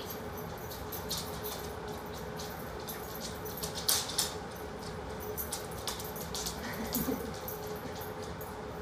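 A dog's claws clicking and tapping on a hardwood floor as it moves about, in scattered light clicks with a brief cluster about four seconds in, over a steady background hum.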